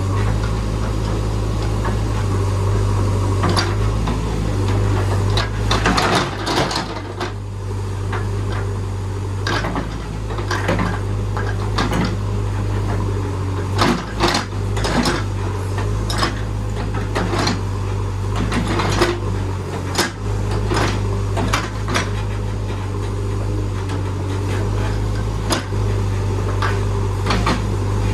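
JCB backhoe loader's engine running steadily with a low hum, while repeated irregular metallic clanks and knocks sound over it as the machine works.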